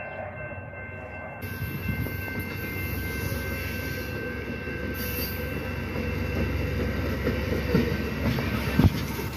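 Bilevel passenger train pulling into the platform cab car first, its rumble building as the cars roll past, with a thin steady squeal from the wheels. A single sharp clunk near the end.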